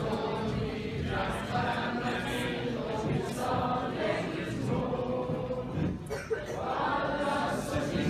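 A small women's choir singing together, holding notes in phrases of a second or two with short breaks between them.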